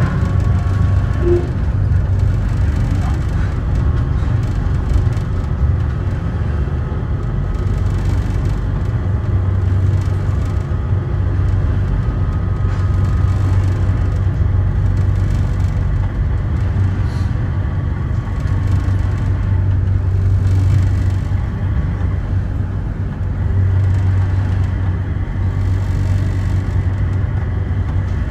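Sengkang LRT train running: a steady low rumble that swells and eases a little, with a faint thin whine above it.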